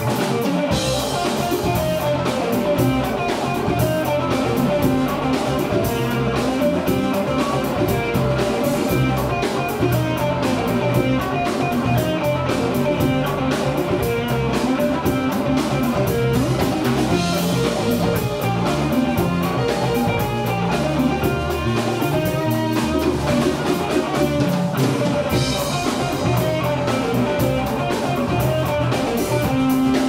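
Live band playing an instrumental piece: electric guitar over a drum kit, with a steady beat.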